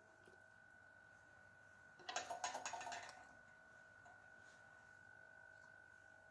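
Near silence with a faint steady high-pitched hum. About two seconds in comes a cluster of light clicks and taps lasting about a second.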